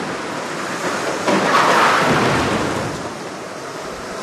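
Race noise in an indoor kart arena: a steady rushing roar that swells sharply about a second in and eases off by three seconds.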